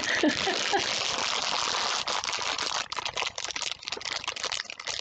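Crinkly iridescent plastic packing material being rustled and crumpled in the hands: a dense crackling rustle that turns choppier after about two seconds.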